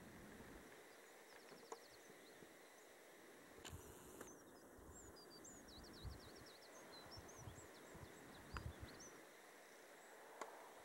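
Near silence outdoors, with faint high bird chirps and a couple of quick trills from a small songbird, plus a few soft low thumps.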